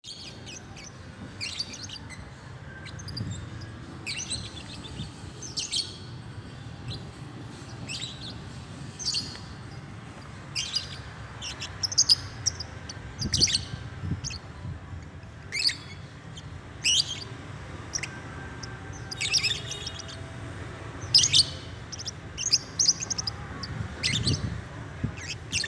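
A bird giving short, high chirping calls again and again at irregular intervals, roughly one a second, chattering while it sleeps.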